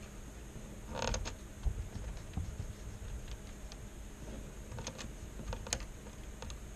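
Scattered light clicks and a short rustle about a second in, as buttons are pressed to look up how an emergency alert was received, over faint room hiss.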